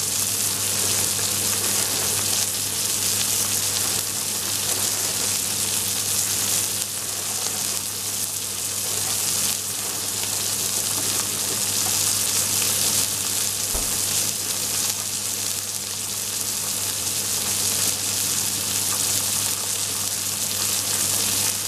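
A steak and whole garlic cloves sizzling steadily in hot oil in a cast-iron skillet, with a low steady hum underneath.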